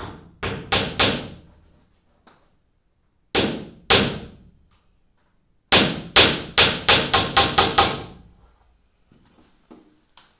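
Claw hammer driving nails into a plywood boat panel. There are several quick strikes at first, a pair of blows about three and a half seconds in, then a fast run of about nine blows at roughly four a second.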